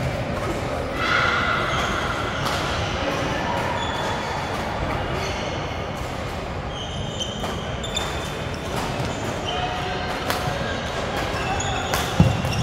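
Badminton play in a sports hall: sneakers squeaking on the court floor and sharp racket hits on the shuttlecock, over a background of voices in the hall.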